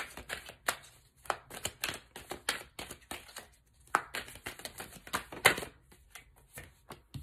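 A deck of paper message cards being shuffled by hand: a run of quick, irregular card snaps and slaps, several a second, with louder snaps about four and five and a half seconds in.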